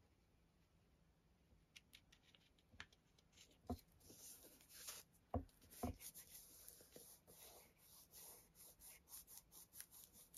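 Faint handling of paper on a cutting mat: a brown paper tag backing being pressed and smoothed by hand, with a few light taps and soft rustling.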